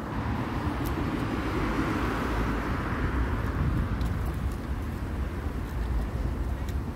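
City street traffic: a steady roadway rumble, with one passing vehicle swelling and fading about two to three seconds in.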